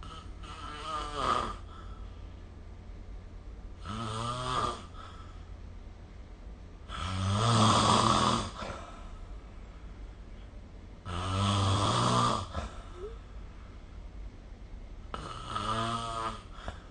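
A person snoring: five snores at about four-second intervals, each lasting a second or so, the middle ones the loudest, over a steady low hum.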